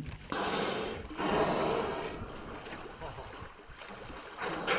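Killer whales blowing as they surface: a sudden breathy rush that lasts about two seconds, then a shorter blow near the end, over lapping water.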